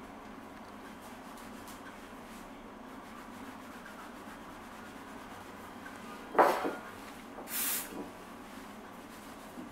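Cloth-covered fingertip rubbing over the glass of a phone LCD panel, a faint steady rubbing over a low hum. About six seconds in comes one sharp knock, and a short hiss follows about a second later.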